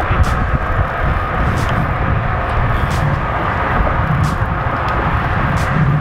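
Steady wind rushing over the microphone with a low rumble. A faint, short tick repeats about every second and a half.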